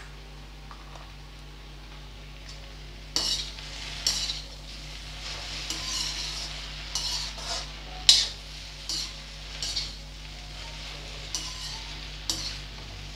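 A metal spoon stirring, with irregular scrapes and clinks against steel cookware as spice powders are mixed and okra is stirred in the pan, over a faint sizzle of okra frying. The strokes begin about three seconds in and come every half second to a second.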